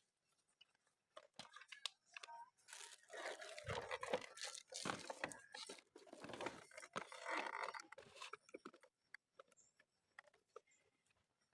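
Toy packaging being torn open and crinkled by hand, in irregular rustling bursts that stop about eight seconds in, followed by a few small clicks.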